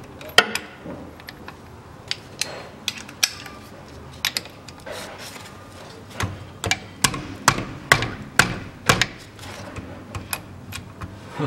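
A 24 mm socket on a long ratchet handle clicking and clinking against the filler plug of a Mitsubishi Pajero's rear differential as the plug is worked loose: a scatter of sharp metal clicks, more frequent in the second half. The plug is done up tight.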